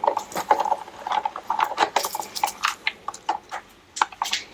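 Irregular clicks and knocks of hand tools and metal parts being handled while a small outboard motor is dismantled.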